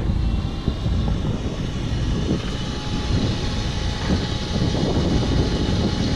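Steady wind rumble buffeting the microphone on the deck of a sailing yacht, with a faint steady hum underneath.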